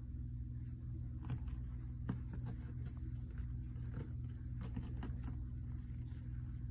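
Young sulcata tortoise biting and munching a dandelion: small, irregular crunching clicks over a steady low hum.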